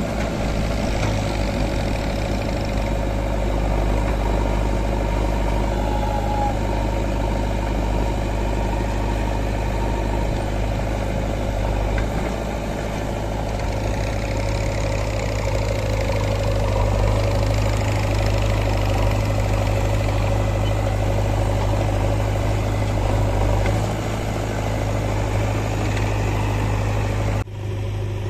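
Heavy diesel machinery engine running steadily under work. The sound changes abruptly near the end.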